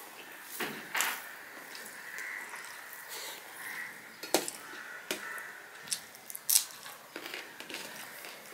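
A hand mixing rice and vegetables on a stainless steel plate: soft squishing with scattered sharp clicks and taps of fingers and food against the metal, along with chewing. The loudest clicks come a little after four seconds and at about six and a half seconds.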